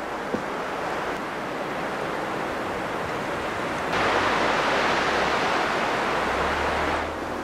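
Steady rushing wind in the conifer forest, with wind rumbling on the microphone; it gets louder a few seconds in and drops back near the end.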